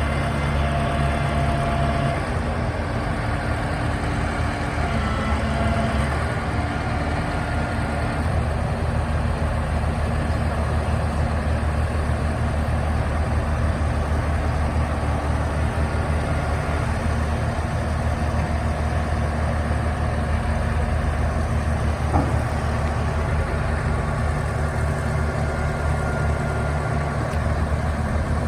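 Warner & Swasey Hopto H-1900 hydraulic excavator running on both of its diesel engines, a steady heavy engine sound with a deep hum and slight shifts in pitch as it works.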